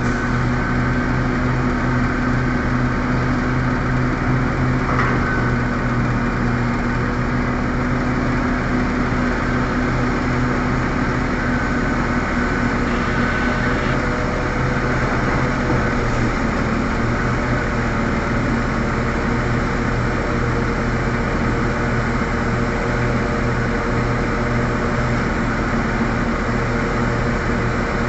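Large diesel engines of a hydraulic mining excavator and a CAT 777D haul truck running steadily while the excavator loads the truck, a constant deep engine hum with no break.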